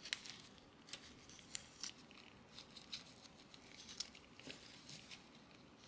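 Faint, scattered light clicks and rustles of gloved hands handling small plastic press-on nail tips and sticky tack, fixing the tips onto nail tip holders.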